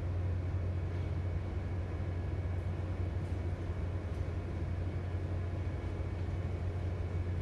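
Steady low hum of a container ship's engines and machinery, with a few faint steady higher tones above it.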